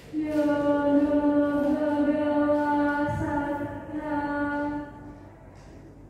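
A woman chanting Pali paritta (Buddhist devotional verses) in one long phrase on a nearly steady pitch, breaking off about five seconds in.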